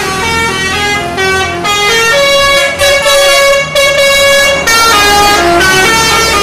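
Multi-tone telolet bus horn playing a tune of held notes that step up and down, over a low engine rumble.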